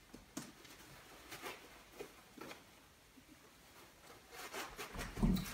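Nylon roll-top dry bag being unrolled and opened by hand: fabric rustling and rubbing in short strokes, louder near the end.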